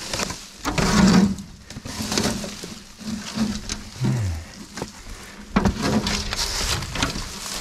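Dry leaf litter crunching and rustling in uneven bursts under footsteps and a snake hook, along with the scraping of rusty corrugated tin sheets being shifted.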